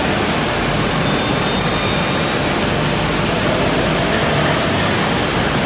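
Steady, even rush of woodworking machinery running in a large machine hall, with no single cut or stroke standing out.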